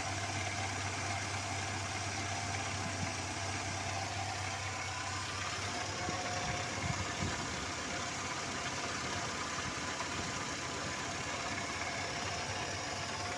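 Car engine idling steadily at about a thousand rpm on the rev counter. The owner finds it runs lumpy below that speed.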